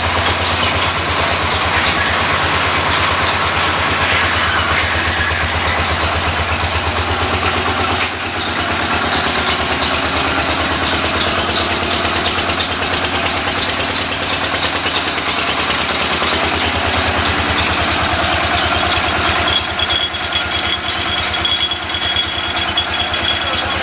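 Borewell drilling rig running: its engine gives a steady low drone beneath a loud, even rush of noise. A few thin, high steady tones join near the end.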